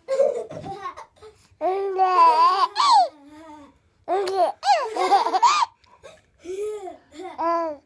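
Baby laughing in about four high-pitched bouts, each a run of rising-and-falling squeals.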